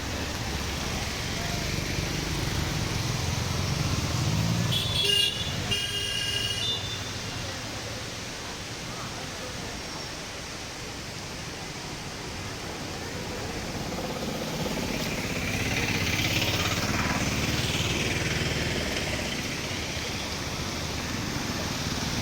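Road traffic noise with vehicle engines running, and a few short horn toots about five seconds in.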